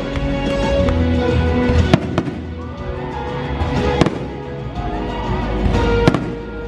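Fireworks bursting over a music soundtrack: sharp bangs about two seconds apart, the loudest three about two, four and six seconds in, with smaller pops between them.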